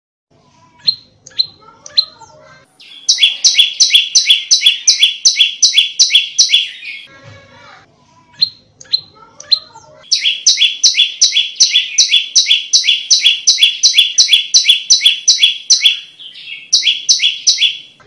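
Prenjak lumut songbird singing. A few sharp, down-slurred single calls give way to long, fast runs of loud, evenly repeated two-part notes, about three or four a second. The runs break off once in the middle for a moment of softer chatter and a couple of single calls, then resume.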